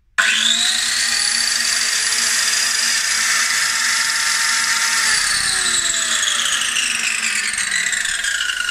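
Max Extra MX4187 corded circular saw with an 18.5 cm blade run without load: the motor comes up to speed almost at once with a steady high whine. About five seconds in the power is let go and the motor and blade coast down, the whine falling steadily in pitch.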